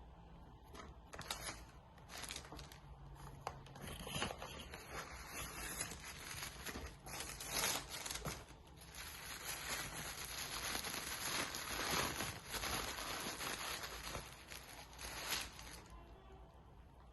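Packaging of a cosmetics gift set being handled and unwrapped: irregular rustling, crinkling and tearing that starts about a second in and stops shortly before the end.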